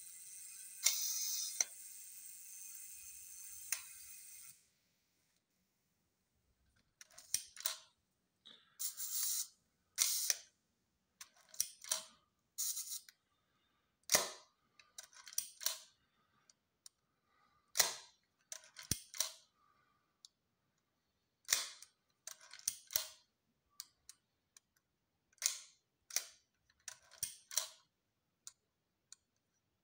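FED 5 rangefinder camera body being worked by hand: a string of short sharp clicks and brief ratcheting rasps as the film advance lever is wound, the shutter is fired and the shutter-speed dial is turned. The clicking starts a few seconds in and comes irregularly, some clicks in close pairs.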